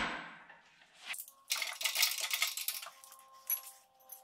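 Metallic clinking and rattling from an LS1 engine hanging on a hoist chain as it is lowered and guided down into a car chassis. There is a knock right at the start, then about two seconds of quick clinks and rattles.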